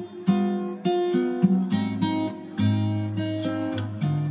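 Background music: acoustic guitar strumming and picking chords.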